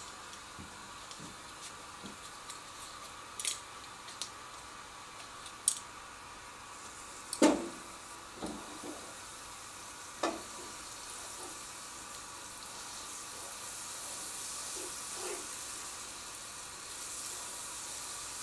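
Butter melting and sizzling in a hot coated frying pan, stirred with chopsticks. A few sharp knocks and clicks come in the first half, the loudest about seven seconds in. The sizzle grows louder toward the end.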